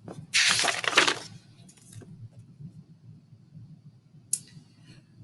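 Paper pages of a picture book rustling as they are turned, about a second of crinkly rustle, followed a few seconds later by a short, sharp rustle.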